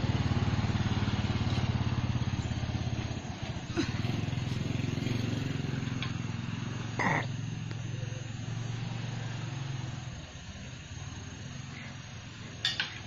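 A vehicle engine idling steadily, dropping away after about ten seconds. A brief short cry cuts in about seven seconds in.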